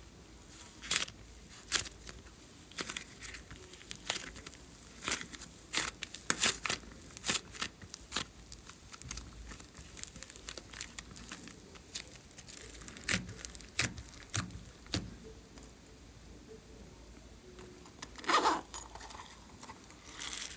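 Soft modelling clay handled by hand, peeled away from a plastic mold and pressed into a tray of slime and foam beads: irregular sticky crackles and clicks, with a denser, louder crackle near the end.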